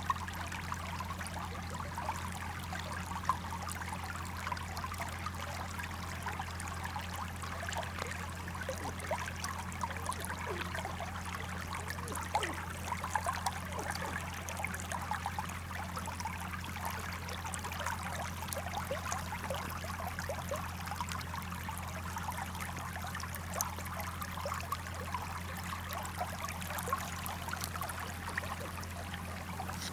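Small stream of water babbling and trickling, a continuous spatter of splashes, over a steady low hum.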